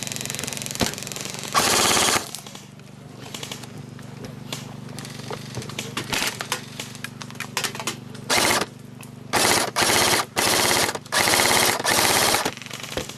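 Airsoft guns firing full-auto bursts: a burst early on, then a quieter stretch of distant rattling fire, then four or five loud rapid bursts close together in the second half.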